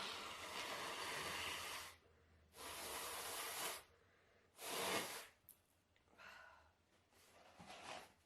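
A person with a heavy cold blowing a congested nose: three strong noisy blows, the first about two seconds long, then two fainter ones near the end.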